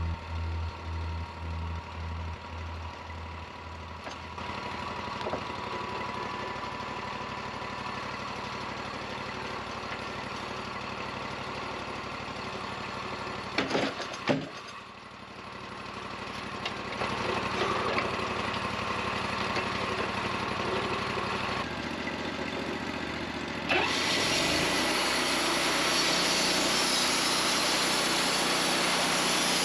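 Band sawmill's engine running steadily, with a couple of sharp knocks about 14 seconds in. From about 24 seconds in the sound gets louder and noisier as the blade saws through the log.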